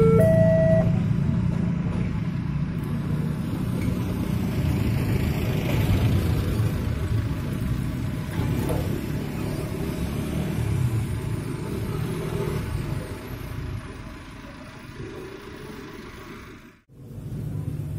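A level-crossing alarm sounds its alternating two-tone signal and stops about a second in. Motorcycle engines and an open-sided tourist road train then run past over the crossing, fading toward the end.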